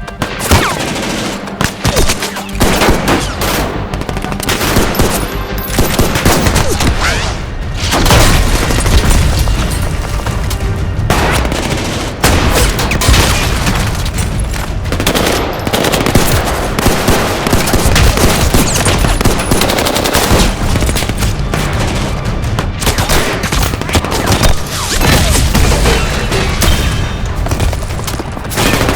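Recorded gunfire sound effects: dense, rapid volleys of gunshots and automatic fire, with music underneath.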